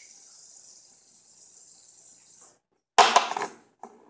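Fidget spinner spinning, a faint steady whir, then after a brief dropout a loud short rattling clatter about three seconds in as it is handled, followed by a single click.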